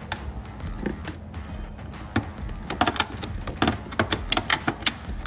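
Cordless impact driver hammering on a bolt through an extension socket, in a few short bursts of rapid clattering blows.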